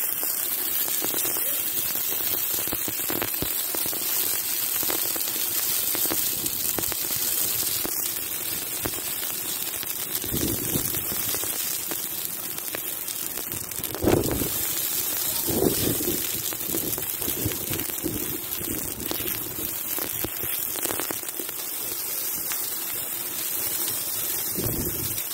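Dry Christmas tree burning: the needles and twigs crackle and hiss steadily, a dense patter like rain. A few low rumbling gusts swell in, the loudest about halfway through.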